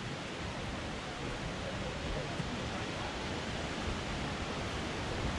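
Steady rush of flowing water, with faint voices of people in the background.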